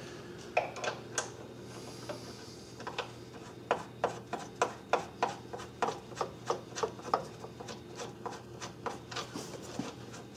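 Light metal clicks and rubbing, several a second and irregular, as nuts and bolts are handled and threaded onto a car's engine mount studs. A faint steady hum runs underneath.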